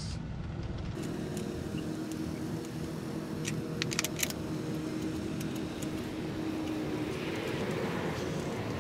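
A few light metallic clicks and clinks of hand tools at the spark plugs, about three and a half to four seconds in, over a steady low hum.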